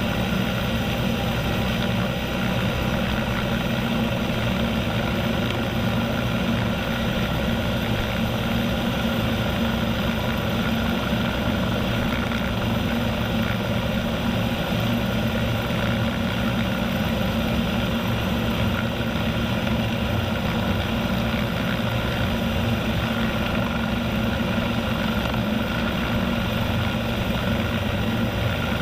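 Bell 430 helicopter's twin turboshaft engines and rotor running steadily, a continuous whine-and-rotor drone with several steady tones and no change in power.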